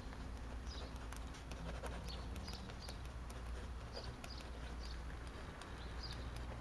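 Faint, irregular scratching of handwriting on notebook paper, a few short strokes at a time, over a low steady room hum.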